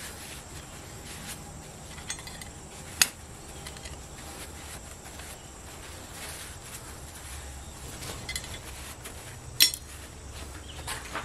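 Forging tongs and a small hand-forged metal pendant being handled over an anvil, with two sharp metallic clinks, about three seconds in and again near the end, over faint steady background noise.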